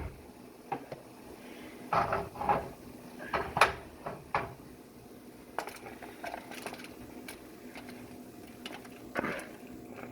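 Cookware and a utensil clinking and knocking irregularly as cooked ground beef in a skillet is drained of its grease. The sharpest knock comes a few seconds in.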